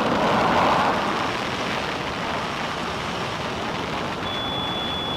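Concorde's four Olympus 593 turbojets at takeoff power with reheat during the takeoff roll: a steady rushing noise, loudest in the first second. A thin, steady high tone starts about four seconds in.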